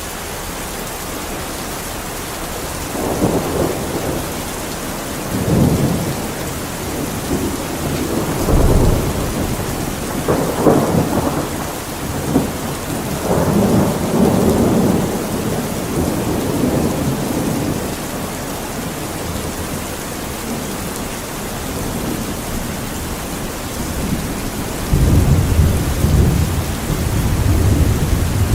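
Steady rain with thunder rumbling several times; the longest roll comes near the end.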